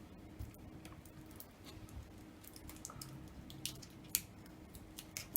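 Faint scattered clicks and small crackles as the iPhone 6s battery's stretch-release adhesive tab is pulled out from under the battery, with the sharpest click about four seconds in. A low steady hum runs underneath.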